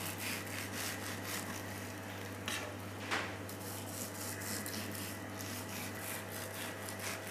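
Irregular scraping and rubbing, with a few sharper strokes about two and a half and three seconds in, over a steady low hum.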